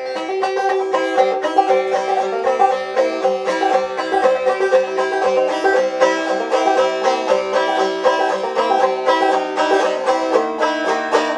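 Banjo picked solo in a quick, steady stream of notes, the instrumental opening of a song before the singing begins.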